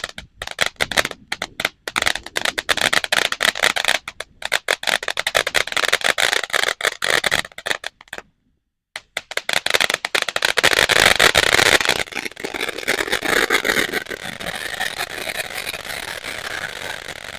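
Venom Fireworks "Everything But The Kitchen Sink" 500-gram fountain firing: dense crackling spray that cuts out for under a second about halfway, then a louder, steadier hiss.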